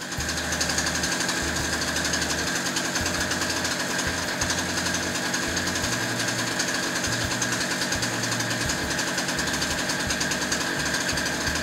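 Norton PGI 1100 portable generator's small two-stroke gasoline engine running steadily, with a constant high whine over the engine noise.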